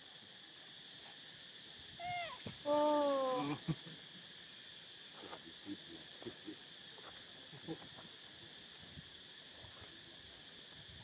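A monkey call about two seconds in: a quick run of short falling squeaks, then a louder, longer wavering cry of about a second. Insects drone steadily throughout, with a few faint clicks later on.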